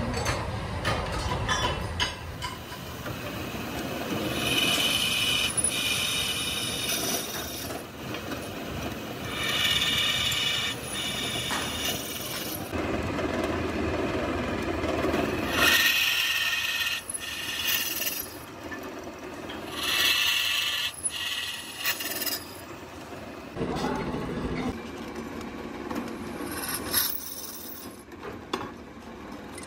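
Drill press drilling holes in cast donkey-pump body parts: the machine runs steadily, with several separate stretches of high-pitched scraping as the bit cuts into the metal.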